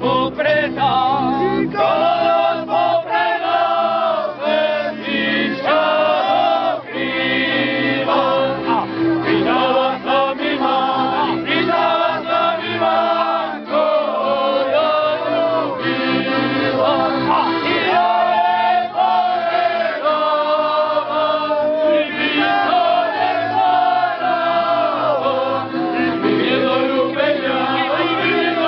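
Slovak folk song: a group of men singing together, accompanied by fiddles, a double bass and an accordion.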